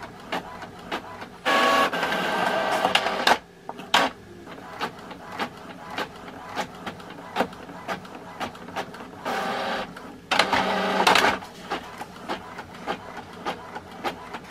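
Epson EcoTank ET-2760 inkjet printer running a long double-sided print job: a steady ticking about twice a second, with two louder stretches of motor and paper-feed noise, one about a second and a half in lasting about two seconds and another about ten seconds in.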